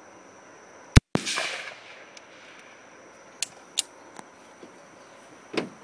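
A single shot from a 14-inch-barrel AR-15 rifle firing 5.56 mm ammunition, about a second in, with an echo trailing off over about a second. A few faint clicks follow.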